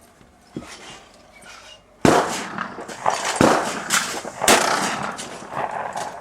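Shotgun fire: three loud shots, the first about two seconds in and the others roughly a second apart, each with a ringing echo trailing after it.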